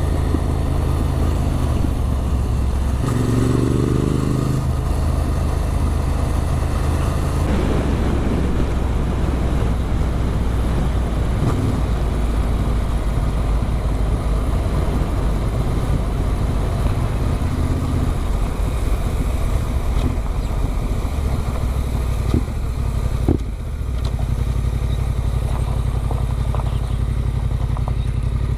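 Adventure motorcycle engine with an aftermarket Arrow exhaust, running steadily under way. The engine note rises briefly a few seconds in.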